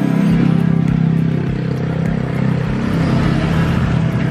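A small engine running steadily at a constant speed, a low droning hum that does not change pitch.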